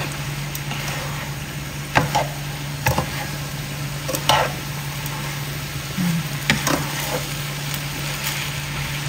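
Noodles sizzling in a hot non-stick wok as they are stir-fried with metal tongs and a spatula: a steady frying hiss, broken by a few sharp knocks of the utensils against the pan about two, three, four and six and a half seconds in. A steady low hum runs underneath.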